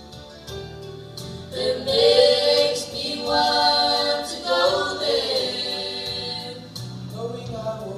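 A small group of male and female voices singing together into microphones, holding long notes, louder from about one and a half seconds in.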